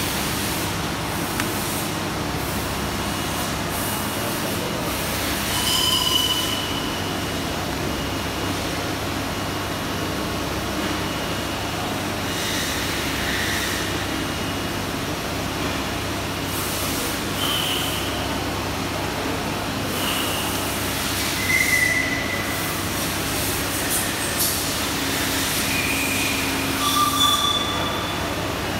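Steady machinery noise with a faint high whine running under it, broken by several brief high-pitched squeals at different pitches a few seconds apart.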